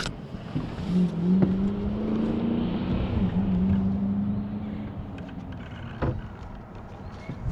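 Electric Minn Kota trolling motor running with a steady hum that starts about a second in, dips briefly in pitch midway and fades out about five seconds in. A few light knocks on the boat hull are heard as well.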